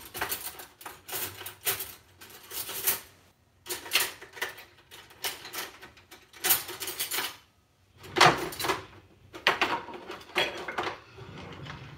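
Cutlery and kitchen utensils clattering as a kitchen drawer is rummaged through for a fork and knife: a run of irregular clinks and rattles with a couple of brief pauses.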